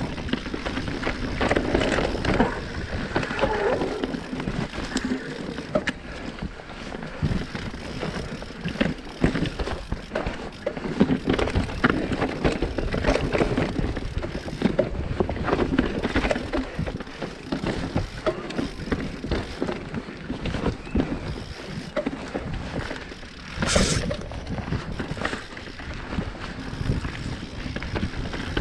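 Mountain bike riding over a rocky woodland trail: tyres rolling over rock and leaf litter, with constant rattling and knocks from the bike as it hits stones, and wind on the microphone. One louder clatter about 24 seconds in.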